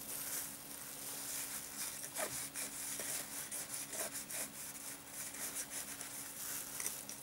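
Fine carp groundbait trickling into a PVA bag, and the thin bag rustling and crinkling as it is handled, in many small soft ticks over a hiss. A low steady hum runs underneath.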